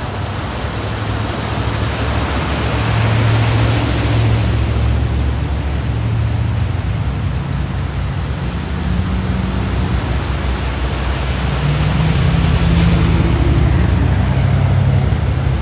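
Cars and pickup trucks driving through deep floodwater, their tyres throwing up spray with a steady rushing of water over the hum of their engines. It swells as vehicles pass, about three seconds in and again near the end.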